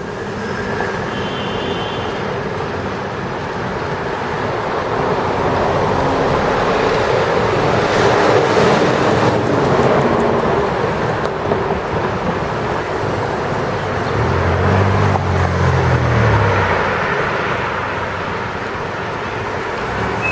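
Steady rush of city street traffic noise heard while moving along the road, with cars passing. A low vehicle hum swells and fades about fifteen seconds in.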